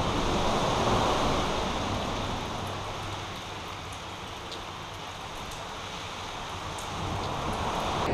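Steady hiss of rain falling, with a few faint ticks like drops.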